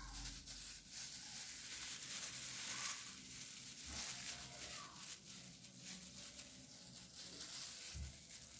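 Faint, uneven rustling of disposable plastic gloves and lettuce leaves as food is handled.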